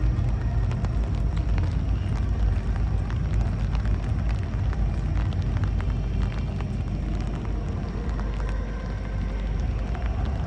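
Fireworks going off: many sharp crackles over a continuous low rumble of bursts.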